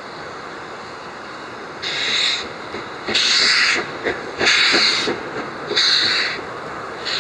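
LMS Stanier Black Five two-cylinder 4-6-0 steam locomotive working toward the listener, its exhaust beats coming as loud hissing chuffs about one every second and a bit, starting about two seconds in, with steam blowing from the cylinder drain cocks at the front.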